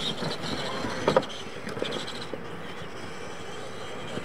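Radio-controlled monster trucks racing on a dirt track: motors whining and tyres working the loose dirt, with two sharp knocks about a second in.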